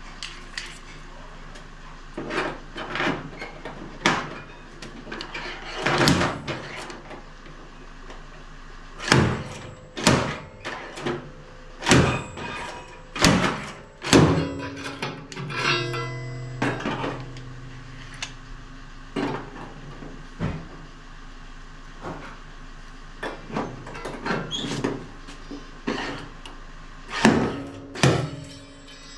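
Slide hammer blows on studs spot-welded to a car's steel wheel arch: a series of sharp metallic knocks at irregular intervals, pulling the dented panel out. A pitched buzz sounds for about two seconds near the middle.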